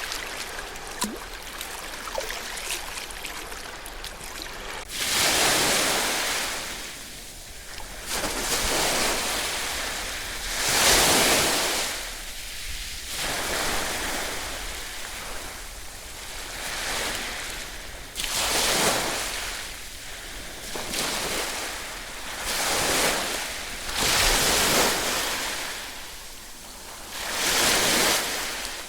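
Ocean waves breaking and washing up on the shore, a surge every two to three seconds. The first few seconds are quieter, with small trickling and clicks.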